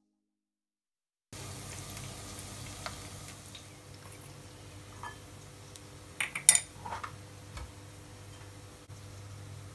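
Near silence at first, then a faint steady hum with a few light clicks. A little past the middle comes a quick cluster of sharp taps as chopped shallots drop into a glass bowl.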